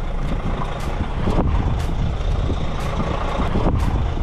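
HGV lorry's diesel engine running as the truck creeps forward at low speed, with a light ticking about twice a second.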